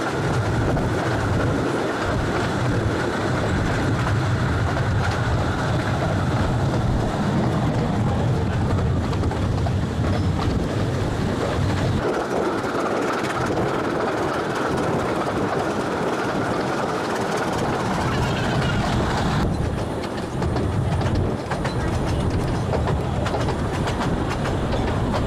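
Train on the 15-inch-gauge Ravenglass and Eskdale Railway running along the track with a steady rumble and wheels clattering over the rails. The sound turns duller about three-quarters of the way through.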